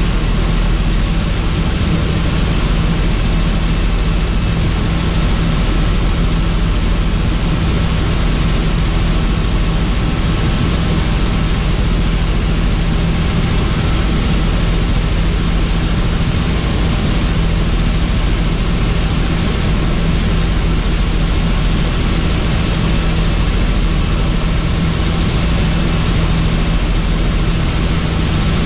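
Helicopter in flight: steady, loud rotor and turbine engine noise with a low drone underneath and a faint high whine on top.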